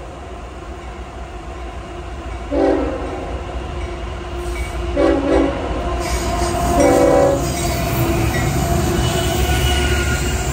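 Union Pacific diesel freight locomotive's air horn sounding three short blasts, about 2.5, 5 and 7 seconds in, the last one the longest. Then the locomotives' diesel rumble and steel wheels on the rail grow louder as the lead units pass close by.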